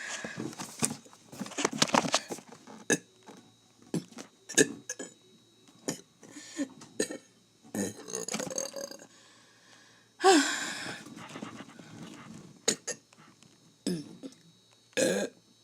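A person burping repeatedly, with many short burps and one longer, louder burp about ten seconds in that falls in pitch.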